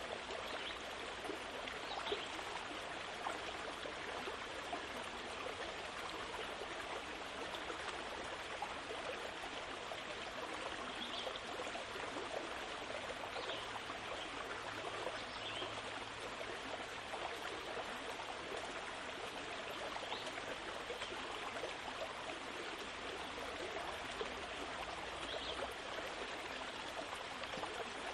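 Steady, even rushing noise, like running water, with a few faint, brief high-pitched sounds scattered through it.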